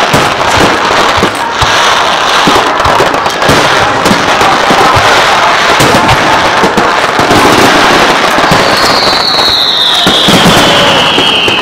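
Fireworks going off in quick succession: dense crackling and popping from crackle shells and ground fountains. About nine seconds in, a long high whistle glides steadily down in pitch.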